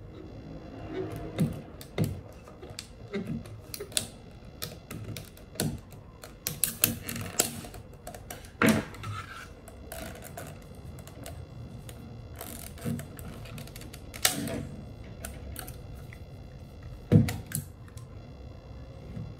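Irregular clicks, taps and knocks of the hard plastic parts of a Dyson V8 cordless vacuum's cyclone and motor housing as they are pried with a metal screwdriver and pulled apart by hand. The sharpest knocks come about nine seconds in and again near the end.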